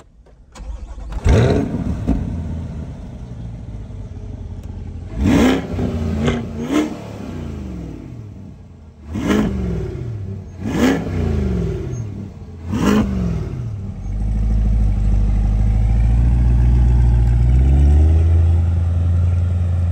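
Chevrolet C8 Corvette's 6.2-litre V8 on its stock exhaust, starting up, then blipped through about six quick revs. From about two-thirds of the way in it runs steadily and loudly at a deep pitch, with one slow rise and fall in revs near the end.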